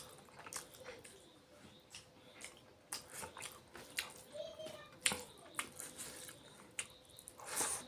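Close-miked eating sounds of fish curry and rice: wet chewing and irregular lip smacks and mouth clicks.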